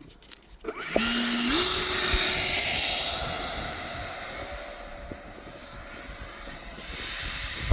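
90 mm electric ducted fan of an RC Eurofighter model jet spooling up about a second in, its whine stepping up in pitch twice and then climbing higher as the jet takes off. The high whine then holds steady and fades as the jet flies away.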